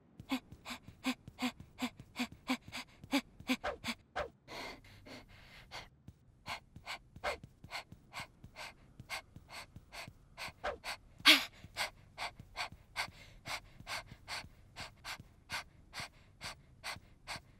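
A cartoon character's voice panting in quick, rhythmic breathy "h" puffs, about three a second, like huffing while jogging. A few longer breaths come about five seconds in, and one louder puff about eleven seconds in.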